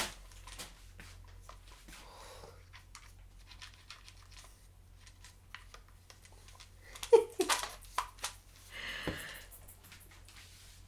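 Packaging being handled and opened by hand: faint rustling, crinkling and tearing, with a few sharp clacks about seven seconds in and a short rustle about nine seconds in.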